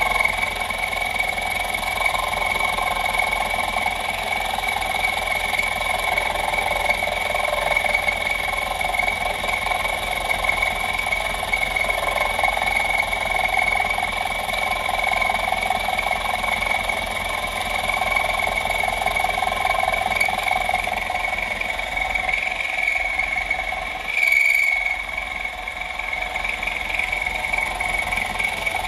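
Small mill-drill, run near its lowest speed on a 500 W motor, with an end mill cutting Uddeholm Sleipner tool steel: a steady high whine over the grinding hiss of the cut. About 24 seconds in there is a brief louder moment, after which the sound is slightly quieter.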